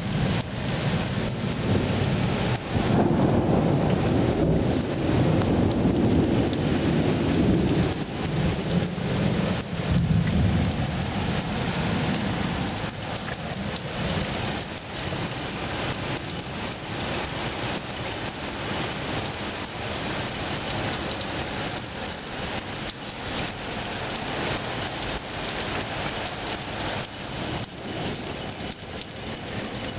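Heavy thunderstorm rain falling steadily, with a long roll of thunder that builds about two seconds in, rumbles for some ten seconds and fades away.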